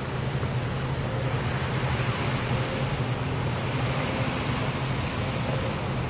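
A steady low rumbling drone with an even rushing hiss over it.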